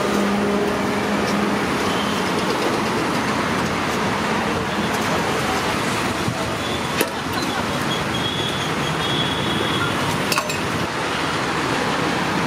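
Steady roadside traffic noise, with two sharp metallic knocks, about seven and ten seconds in, from a steel serving ladle striking the rim of a steel cooking pot.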